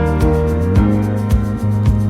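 Background music: sustained instrumental chords over a steady beat of about two strikes a second.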